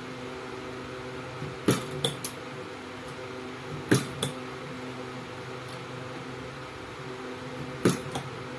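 Battery-cell spot welder firing on nickel strip: three sets of two or three sharp snaps, about two to four seconds apart, over the welder's steady hum.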